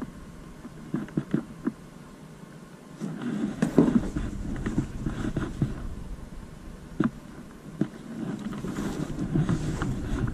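Handling noise: a cardboard box and cloth caps rustling as they are lifted out and turned in the hands, with a few sharp clicks and taps and two longer spells of dense, rumbling rustle.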